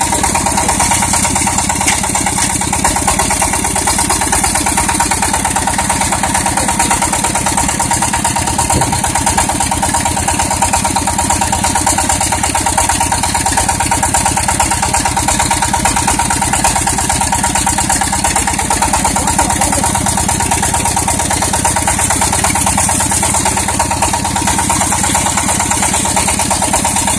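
Walking tractor's single-cylinder diesel engine idling steadily, with an even, rapid chugging beat.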